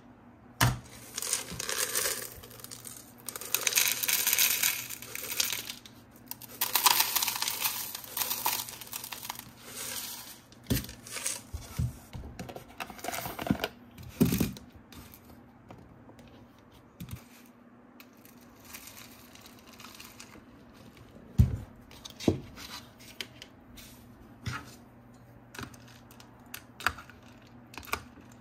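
Toy packaging being torn open and crinkled in three long rustling bursts over the first nine seconds, followed by scattered clicks and taps as the plastic pieces are handled.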